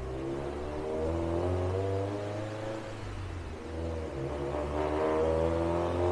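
Subaru STi's turbocharged flat-four under load on a chassis dyno, its note climbing in pitch over the first couple of seconds, falling back, then climbing again louder near the end.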